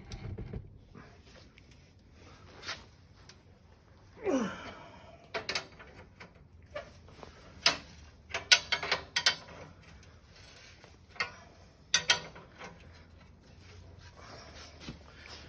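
Scattered metal clicks and clinks of a box-end wrench working the saddle bolts on a David Bradley walk-behind tractor, with a short falling tone about four seconds in and a quick run of sharper clicks a little past the middle.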